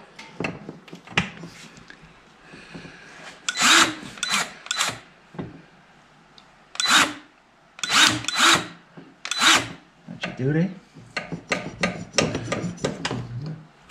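Cordless grease gun run in several short bursts, each under half a second, pumping grease into the snowmobile's suspension (pogo) grease fitting.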